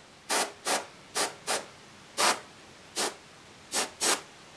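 A paintbrush worked in eight short, scratchy rubbing strokes, unevenly spaced and some in quick pairs, while paint is being applied.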